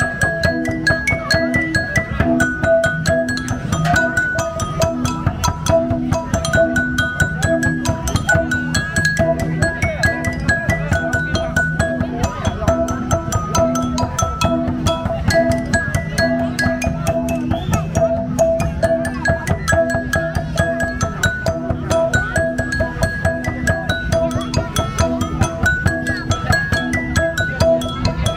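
Đàn đá, a Vietnamese stone lithophone, played with strikers in a fast, evenly pulsed melody of short ringing notes that repeats a few pitches over and over.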